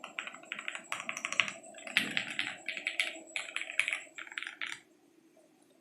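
Fast typing on a Vertizon FRL TKL mechanical keyboard with lubed Jwick Black linear switches, an FR4 plate and ABS Cherry-profile keycaps: a rapid, uneven run of keystroke clacks, with one deeper, heavier stroke about two seconds in. The typing stops near the end.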